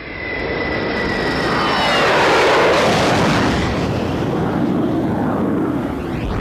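Animated sci-fi aircraft fly-by sound effect: a jet-like rush that swells to its loudest about two seconds in and then holds, with a whine that falls in pitch.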